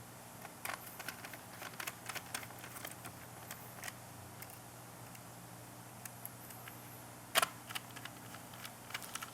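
Light, irregular clicks and taps of a small hand screwdriver and tiny screws as a laptop motherboard is screwed into its chassis. The clicks come close together in the first few seconds, with a single louder click later on and a few more near the end.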